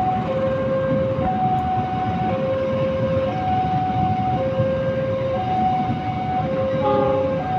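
A two-tone warning alarm alternating steadily between a higher and a lower tone, each held about a second, over the continuous rumble of stainless-steel passenger carriages rolling past on the rails.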